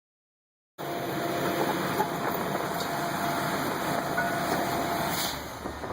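Drilling rig machinery running with a steady mechanical noise and a faint steady hum; it starts abruptly about a second in.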